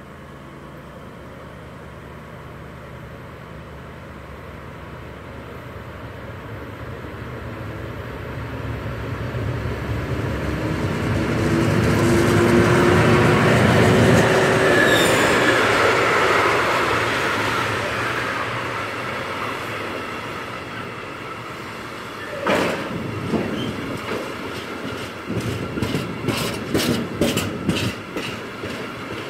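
A LOCON diesel-hydraulic locomotive approaches and passes close by, its engine growing steadily louder to a peak about halfway through, then fading. Container flat wagons follow, rolling past with a rhythmic clickety-clack of wheels over rail joints in the last several seconds.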